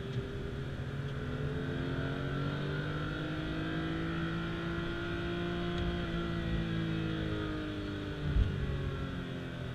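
Porsche 991.2 GT3's 4.0-litre naturally aspirated flat-six heard from inside the cabin at speed, its note rising slowly as it pulls through a gear, then easing back down. A single thump sounds about eight seconds in.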